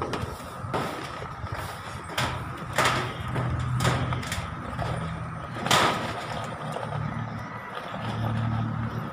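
Irregular knocks and clanks of roofing work, about six in all, the loudest about three seconds in and near six seconds in, over a steady low rumble.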